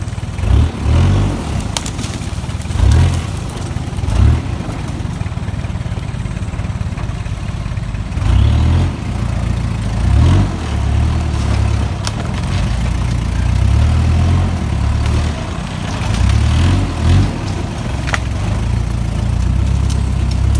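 Kia Sportage 4x4's engine pulling at low speed over a rough trail, a low rumble that swells with the throttle every few seconds. A few sharp knocks and clatters from the vehicle body and suspension come through.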